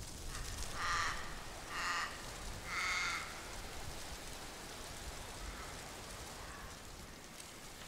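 A bird calling three times, short calls about a second apart, with fainter calls a few seconds later, over a steady low hiss of forest ambience.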